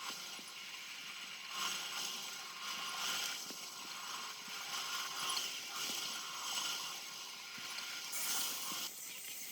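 Metal machinery clattering with a ratchet-like rattle that swells in a steady rhythm, about every two-thirds of a second.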